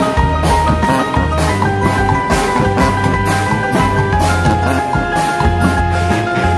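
Music with a steady beat: held melody notes over a bass line and regular percussion hits.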